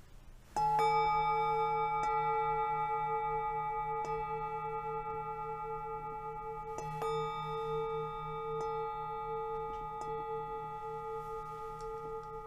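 A singing bowl struck about half a second in and again about seven seconds in. Each stroke rings out slowly with a pulsing waver.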